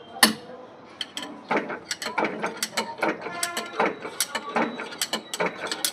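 Hand tools working on tractor parts: an irregular run of sharp metallic clicks and clanks, some ringing briefly.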